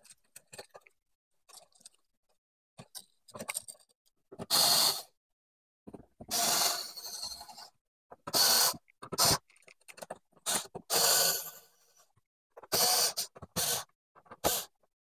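A small cordless screwdriver drives the receptacles' mounting screws into a metal outlet box in about eight short runs, each lasting half a second to a second and a half. Light clicks from the wires and receptacles being pushed into the box come first.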